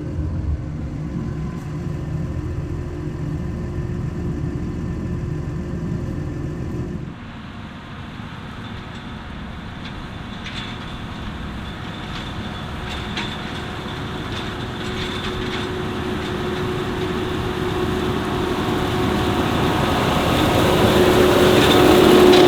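Motors running with steady tones. The sound changes abruptly and drops about seven seconds in, then grows steadily louder towards the end.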